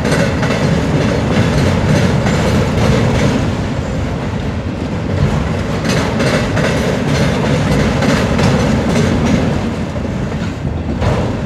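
CSX freight train of autorack cars rolling past, its steel wheels clicking over the rail joints above a steady rumble.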